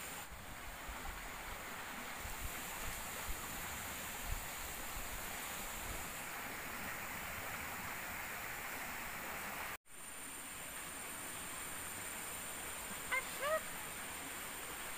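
Forest ambience: a steady rushing hiss under high, steady insect drones, with a few soft low knocks in the first half. Near the end an animal, taken for a bird, gives two short honking calls. The sound cuts out for an instant about ten seconds in.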